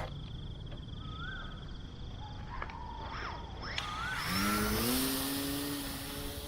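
A steady high trill and a few short chirps, then about four seconds in an RC plane's motor and propeller spool up: a rising whine that levels off into a steady drone, with a rush of air noise that is loudest just after the start-up.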